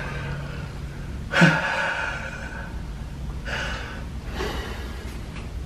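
A person gasping loudly: three breathy outbursts, the first and loudest about a second and a half in, the others near the middle of the stretch.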